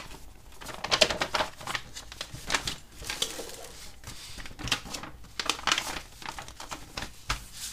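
A folded paper instruction manual being unfolded, smoothed flat on a desk and refolded: irregular rustling and crackling of the paper.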